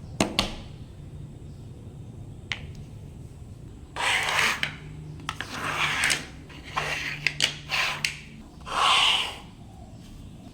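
Hands at work on craft materials: a few sharp clicks near the start, then a run of rubbing and scraping from about four seconds in to about nine.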